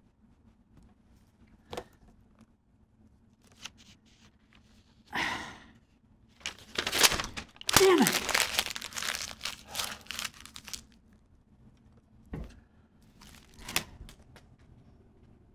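Paper crinkling and rustling as a wrapped item is handled and opened, loudest in a dense run in the middle, with a long breathy sniff just before it and a short falling moan about eight seconds in. A few soft knocks are scattered around it.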